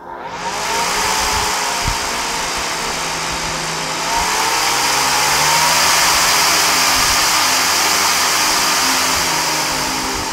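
A powerful 120 mm brushless fan running fast at about 9 volts: a loud rush of air with a motor whine that slides up and down in pitch as the speed knob on its buck converter is turned. It starts at once and grows louder about four seconds in.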